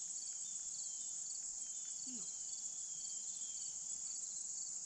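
Steady insect chorus, a continuous high-pitched buzz with a fainter chirp in quick triplets repeating about every half second.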